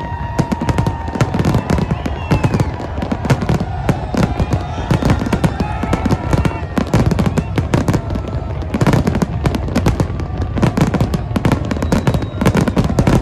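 Fireworks display: a dense, continuous barrage of bangs and crackling from many shells and firecrackers going off in quick succession, with no pause, and rising and falling whistle-like tones running through it.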